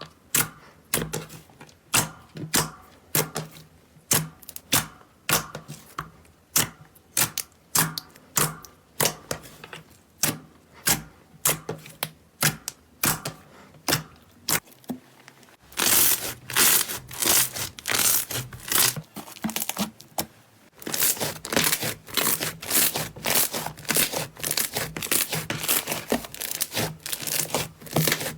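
Slime being squished, giving sharp wet pops and clicks at about two a second. From about halfway they turn into a dense, rapid crackling.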